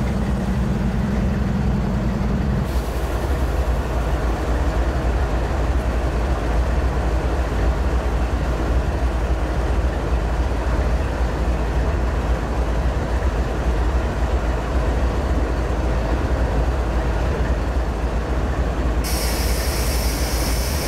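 CN diesel locomotive running close by with a steady low rumble. A low hum drops away about three seconds in, and a high hiss comes in near the end.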